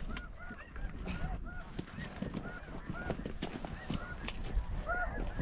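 Snow geese calling: many short, high yelps overlapping and repeating without a break, with wind rumble on the microphone.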